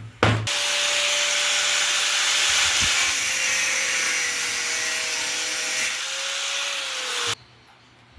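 A mini wood lathe running while wood spins against a turning tool or sandpaper, giving a steady scraping hiss over a faint motor whine; it stops abruptly near the end. A single knock comes right at the start.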